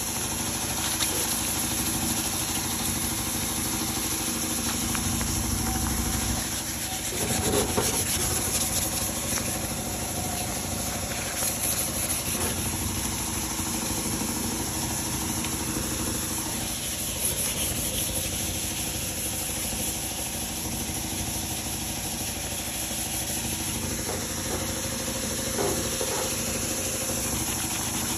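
Air compressor for a spray gun running steadily with a constant hum and hiss, with a few brief knocks and handling noises, the loudest about seven seconds in.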